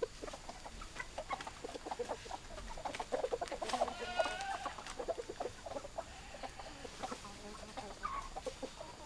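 Several hens clucking, short overlapping clucks throughout, with a louder drawn-out call about four seconds in.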